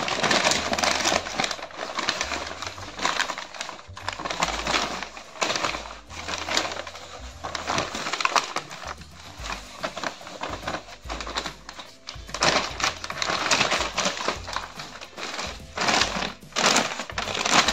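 Brown kraft paper bag and plastic packaging crinkling and rustling as they are pulled open and handled, in irregular bursts.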